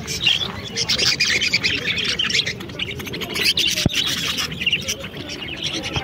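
A crowd of caged budgerigars chattering and chirping continuously, with a single sharp click about four seconds in.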